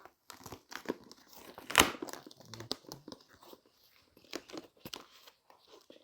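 Shipping packaging being handled and opened by hand: irregular crinkling, crunching and tearing, with the loudest crunch about two seconds in.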